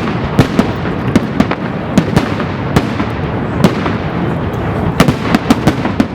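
Fireworks going off in an irregular string of sharp bangs and pops, several a second, over continuous crackling.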